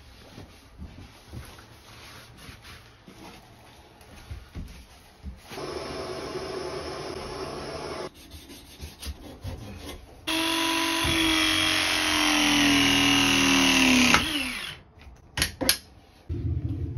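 Propane torch hissing steadily for a couple of seconds, then a Ridgid cordless power tool running for about four seconds, its pitch sinking under load before it winds down; two sharp clicks follow, and the tool runs again near the end. Light scraping and handling of metal fittings comes first.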